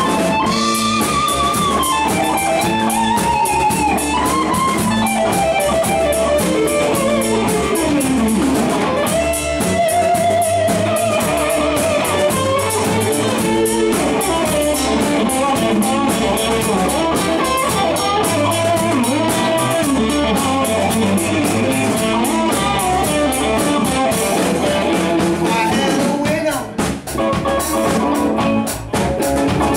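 Live blues band with electric guitars and a drum kit playing an instrumental stretch; a lead electric guitar solos over the rhythm, with bent notes and vibrato.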